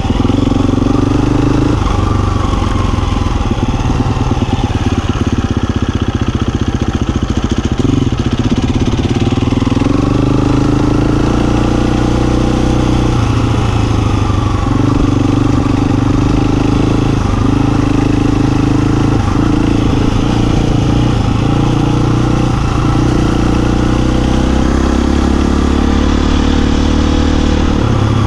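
Husqvarna FE350 dirt bike's single-cylinder four-stroke engine running under way, its note rising and falling with the throttle.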